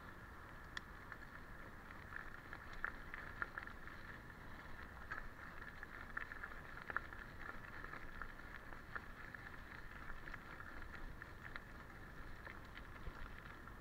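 Rockrider mountain bike rolling along a loose gravel track: a steady crunch of tyres on gravel, dotted with many small ticks and rattles and a few sharper clicks.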